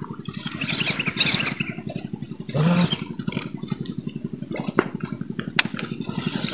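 A small engine running steadily with an even, rapid beat.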